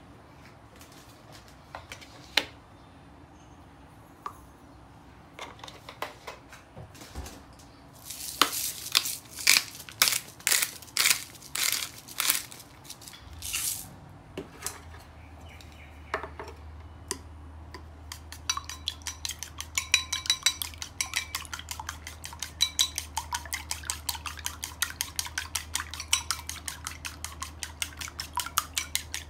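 Chopsticks beating eggs in a ceramic bowl: a fast, even clatter of about six clicks a second that starts about two-thirds of the way in. Before it, a run of short, loud strokes and a few scattered light knocks against kitchenware.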